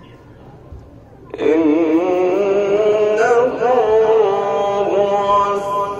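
A man's voice starts chanting about a second in: a long, ornamented melodic line whose held notes waver in pitch.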